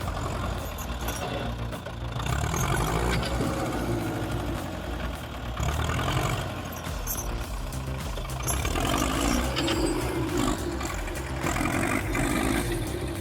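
Tractor engine running, swelling and easing off every few seconds as it works under load.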